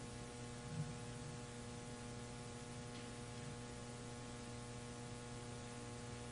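Faint, steady electrical mains hum made of several steady tones, with no voice.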